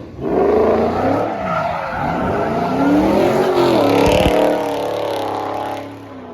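A car engine revving hard, rising and falling in pitch again and again, with tyres squealing as in a burnout or donut. It stops about six seconds in.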